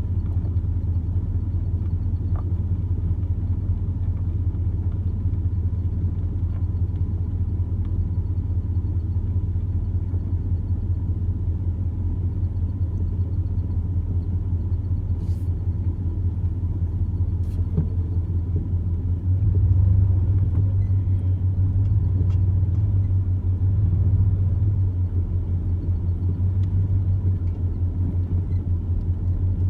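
Steady low rumble with a fast, even pulsing, swelling louder for a few seconds about twenty seconds in.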